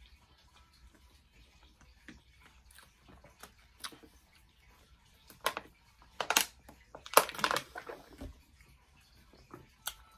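Faint chewing with a full mouth, then drinking from a small plastic water bottle, with a cluster of sharp clicks and crackles past the middle.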